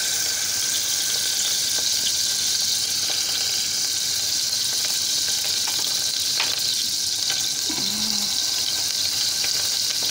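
Melted butter frying with a steady sizzle in a stainless saucepan as oyster juice is strained into it through a small sieve. There are a few light clicks partway through.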